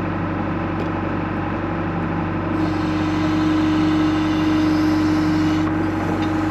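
John Deere 310 backhoe's engine running steadily, growing a little louder about two and a half seconds in.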